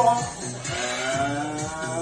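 Background music: held tones over a steady, regular beat.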